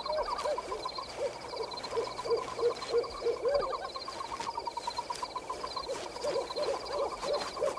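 Night woodland sound effects: short hooting calls, like an owl's, repeated several times a second, over a steady pulsing chirr of night creatures.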